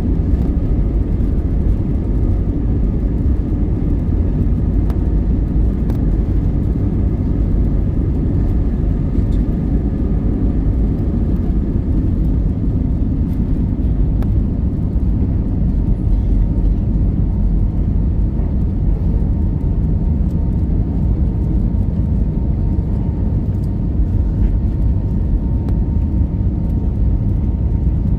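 Airbus A320neo cabin noise during takeoff: a loud, steady, deep rumble of the jet engines and rushing air, heard from inside the cabin, with a faint steady whine joining about halfway through.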